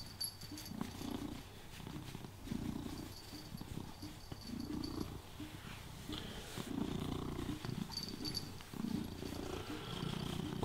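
Black domestic cat purring while being stroked, the purr swelling and fading in cycles of about a second.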